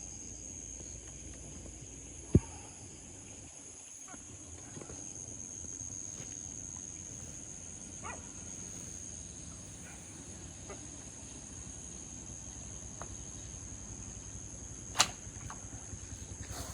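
Night ambience with a steady high-pitched insect drone, broken by two sharp knocks, one about two seconds in and one near the end, and a few faint chirps.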